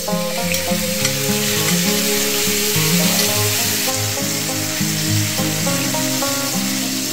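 Food frying in a hot pan, a steady sizzle that starts suddenly, with background music playing underneath.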